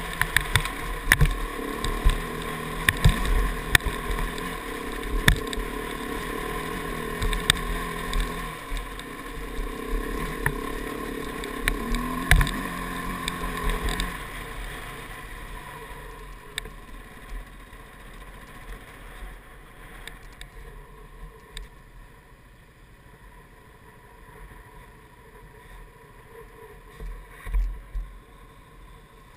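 KTM 690 single-cylinder engine pulling up a steep rocky slope, its note rising and falling, with sharp knocks as the bike jolts over rocks. About halfway through, the engine note drops away and it runs much quieter, with only a few knocks.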